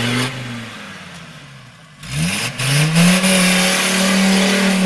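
Off-road 4x4's engine, most likely a Mercedes G-Class, working to drive out of a muddy rut on a slope. The revs fall away at first, then about two seconds in it is revved sharply and held loud at high revs.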